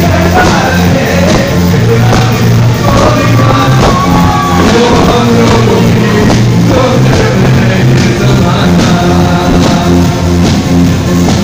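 Loud live band music with a singer, heard from among the audience.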